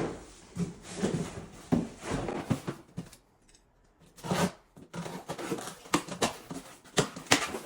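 Cardboard shoeboxes and packing paper being handled: a series of rustles, scrapes and light knocks, with a brief pause in the middle.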